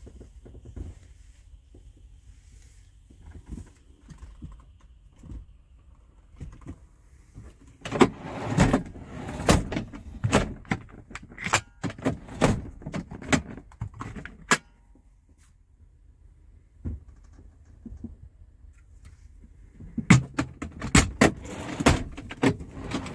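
Clattering knocks and rattles of a truck cab's plastic storage-compartment lids and fittings being handled. They come in two bouts of quick knocks, one of several seconds about a third of the way in and a shorter one near the end.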